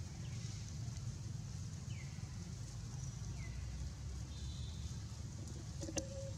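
Short, high-pitched animal calls, each dropping in pitch, about every second and a half over a steady low rumble; a sharp click about six seconds in.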